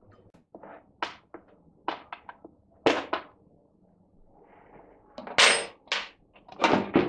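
Knocks and thuds of plastic mower housing parts being handled and set down on a bench. A few light taps come in the first three seconds, then louder thuds from about five seconds in.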